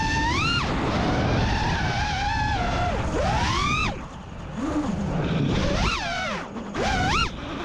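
Brushless motors of an FPV quadcopter whining, the pitch climbing steeply with each throttle punch and dropping away as the throttle is chopped, several times over, with wind rush.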